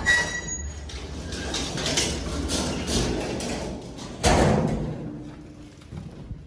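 Old Soviet-era passenger lift clanking as it runs: a sharp click with a brief squeal at the start, rattling and knocks, then a loud door-like bang about four seconds in.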